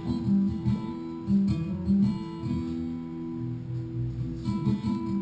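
Acoustic guitar playing a Breton dance tune for the kost ar c'hoat, with a low note held steadily under the changing melody.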